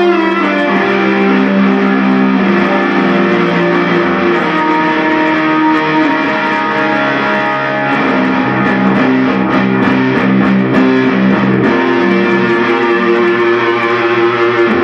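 Guitar music playing loudly, with sustained chords and a steady bass line, recorded through a phone microphone.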